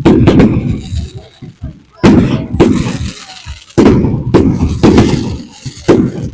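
Aerial fireworks exploding: a string of about ten loud bangs, each trailing off in a low rumble, some followed by a fizzing crackle.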